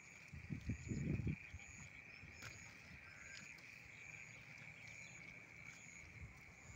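Faint, steady chorus of insects, with a short high chirp repeating about once a second. A brief low rumble on the microphone comes about a second in.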